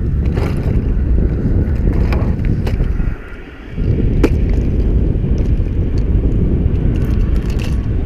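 Wind buffeting the microphone in a loud, low rumble that eases briefly about three seconds in, with a few light clicks over it.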